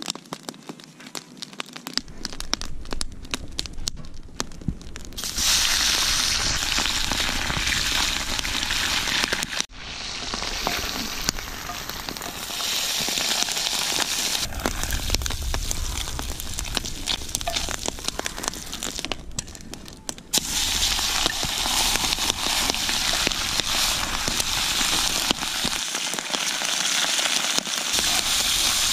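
Smelts frying in hot oil in a cast iron pan: a loud, steady sizzle that sets in about five seconds in, after a stretch of sparse crackling and popping.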